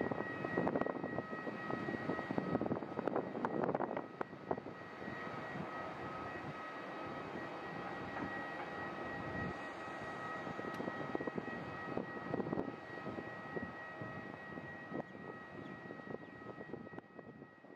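Airbus A330-200 jet engines heard from afar as the airliner rolls out after landing: a steady rumble with a thin high engine whine, louder and uneven for the first four seconds, then easing and fading slowly.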